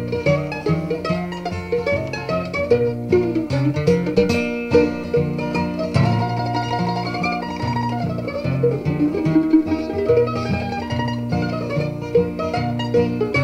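Instrumental break of a bluegrass-style song on acoustic plucked strings: a quick picked melody over a moving bass line.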